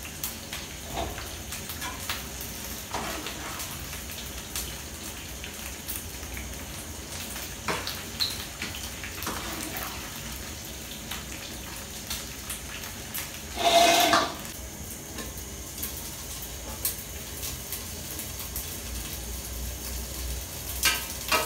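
Snails frying in hot oil in a metal pan, a steady sizzle, with small clinks of a metal spoon against the pan as the snails are scooped out. One brief louder sound about two-thirds of the way through.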